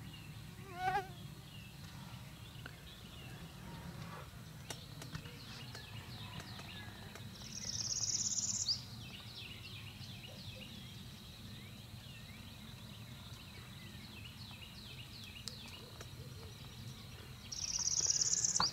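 Outdoor woodland ambience at dusk: many small high bird chirps and a steady high insect tone over a low rumble. There is a short pitched animal call about a second in, and two louder high buzzes of about a second each, roughly ten seconds apart, the second near the end.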